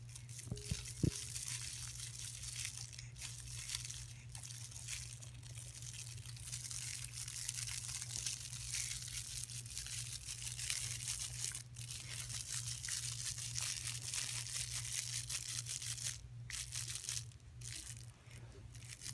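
A baby's crinkle toy rustling and crinkling continuously as it is batted and moved about, with irregular crackles.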